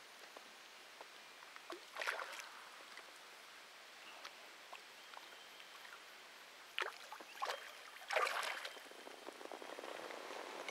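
Faint water splashing and sloshing at the surface. There are soft splashes about two seconds in and several more between about seven and nine seconds, over a low steady hiss.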